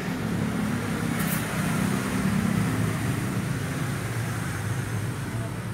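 Steady low rumble of a motor vehicle running, with no distinct events.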